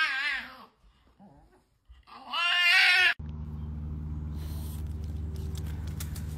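A small white dog howling: two wavering, yowling cries, the second a couple of seconds after the first. About three seconds in, a steady low hum takes over.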